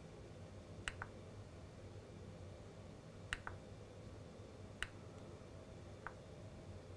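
Faint sharp pops and ticks from a nichrome-wound heat core's cement coating as it is cooked and trapped moisture steams off. There are about six, some in quick pairs, over a low steady hum.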